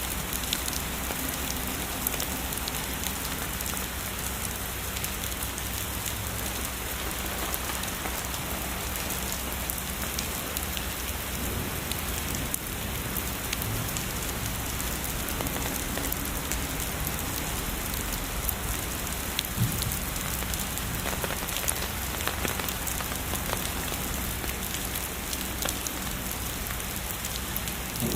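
Heavy rain falling steadily, with many sharp ticks of single drops striking a surface.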